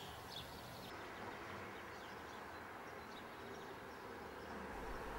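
Quiet outdoor garden ambience with a few faint, short bird chirps; a low hum comes in near the end.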